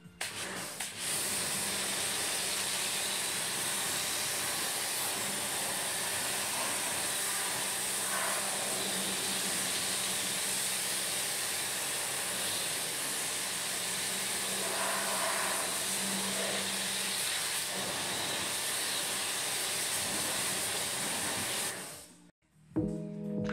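Pressure washer jet spraying water onto a car wheel and tyre: a steady hiss with a low hum underneath, starting about a second in and cutting off suddenly near the end.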